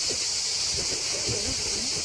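Chorus of cicadas buzzing in a steady, unbroken high-pitched drone, over a low rumble of wind on the microphone.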